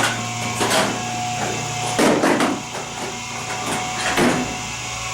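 Sharp metal knocks and clanks from working on a dirt bike chain, trying to pop out a link pin whose head has been ground off, over a steady low hum that stops about two seconds in.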